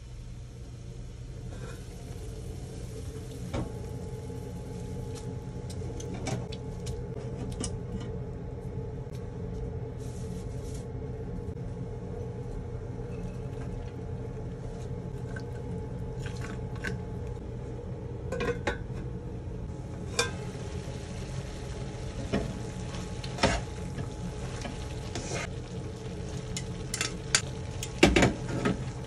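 Pan of rice noodles in broth simmering and sizzling over a steady hum, with scattered clicks and clinks of metal utensils on the pan. The loudest knocks come near the end as metal tongs toss the noodles.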